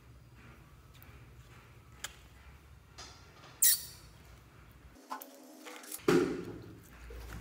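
A squeeze tube of liquid lipstick being pressed out onto clear slime: small sticky clicks, a short sharp squeaky squirt about three and a half seconds in, the loudest sound, and a wet squelch near the end.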